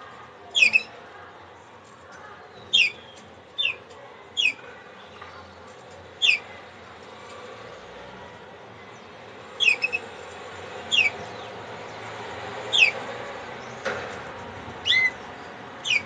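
Yellow domestic canary giving short call notes, each falling quickly in pitch, about a dozen at irregular intervals with a pause of a few seconds midway.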